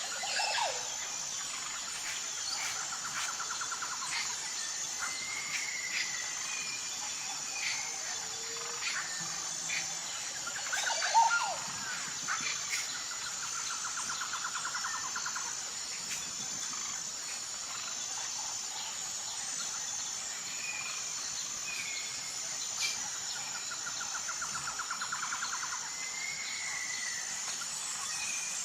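Tropical forest ambience: a steady high-pitched insect chorus with a regular pulsing beat, and scattered bird chirps and whistles over it. A few rapid rattling trills come and go, each lasting a couple of seconds, and the loudest call comes about eleven seconds in.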